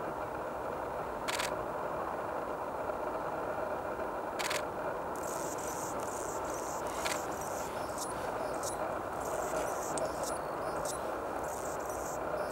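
Male Anna's hummingbird singing its high, scratchy perch song: a run of short buzzy notes starting about five seconds in, after two sharp ticks. A steady low background rumble runs underneath.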